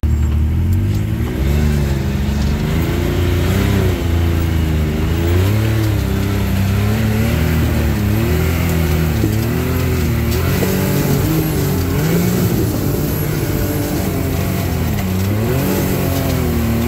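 Can-Am Maverick side-by-side's engine pulling up a rough dirt trail. Its pitch rises and falls every second or so with the throttle, over a steady noise of driving.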